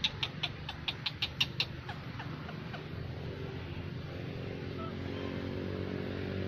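A macaque giving a rapid string of short, shrill cries, about five a second, that fade and stop under two seconds in. A steady low hum follows.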